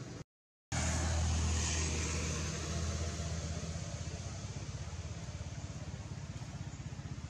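Steady low engine-like hum under a constant hiss, with a fast flutter in loudness, loudest just after a brief cut to total silence near the start.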